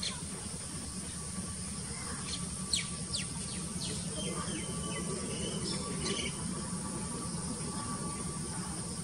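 Birds chirping, with a quick run of short falling chirps about a third of the way in and more chirps soon after, over a steady high insect buzz and a low steady rumble.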